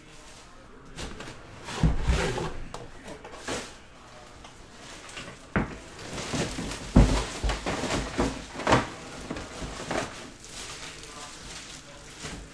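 A trading-card box being handled and opened on a tabletop: irregular knocks, clicks and scrapes of cardboard and a hard case, with the sharpest knocks about halfway through.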